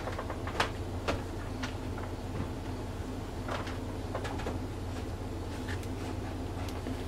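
Scattered light clicks and rustles from hands handling a potted plant, over a steady low hum.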